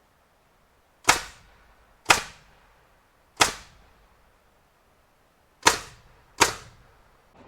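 Pneumatic framing nail gun firing five single shots at irregular intervals of about one to two seconds, each a sharp bang with a short ringing tail.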